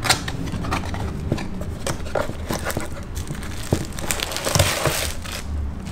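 Cardboard box being opened by hand: flaps and a paper tab pulled and handled, with scattered clicks, crinkling and rustling, and a longer rustle about four and a half seconds in.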